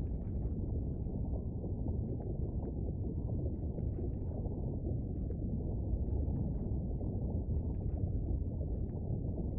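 Volcano rumble sound effect: a steady, deep rumbling noise with faint scattered crackles above it.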